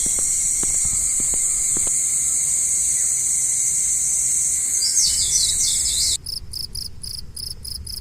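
Crickets and other insects stridulating in a steady, high-pitched chorus, with a few short chirps about five seconds in. About six seconds in it changes suddenly to a close insect's rhythmic pulsing chirp, about five pulses a second.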